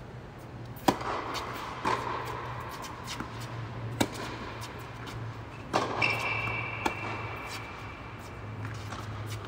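Tennis rally on an indoor court: a serve struck about a second in, then racquet hits and ball bounces popping every one to two seconds, each with a short echo in the hall. A brief high squeak comes about six seconds in, over a steady low hum.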